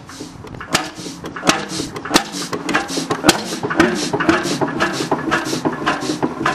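1937 Beijer 25 HP horizontal hot bulb engine running, its flywheels turning, with a string of sharp knocks at an uneven beat of about two to three a second over a low mechanical rumble.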